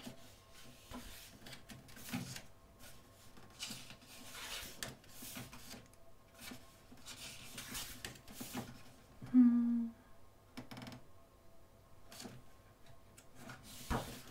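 Paper pages of a thick softcover photo book being turned and smoothed by hand: repeated soft rustles and flicks of the sheets. About nine and a half seconds in, a short hummed "mm" from a woman is the loudest sound.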